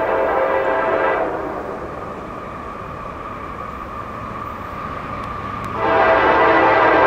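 Locomotive air horn sounding a multi-note chord. It starts suddenly and loud, eases after about a second but keeps sounding, then grows loud again near the end.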